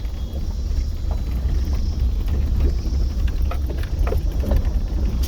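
Off-road vehicle driving over a rough dirt trail: a steady low rumble with scattered knocks and rattles from the bumps. Cicadas buzz faintly and high in the background.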